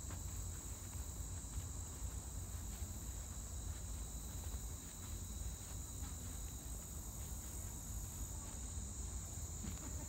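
Insects singing in a steady, high-pitched chorus, with a low rumble underneath.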